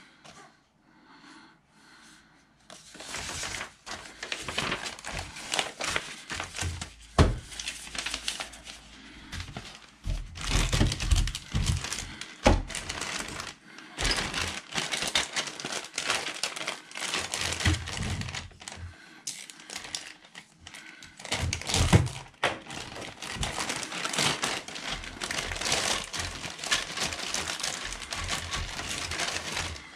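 Clear plastic bags crinkling and rustling as plastic model kit parts sprues are handled and pulled out of them, starting about three seconds in, with a few knocks of the plastic parts against the table.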